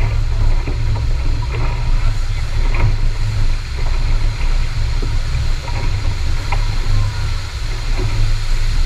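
A boat moving across the water of a sea cave, giving a loud, uneven low rumble with faint splashes.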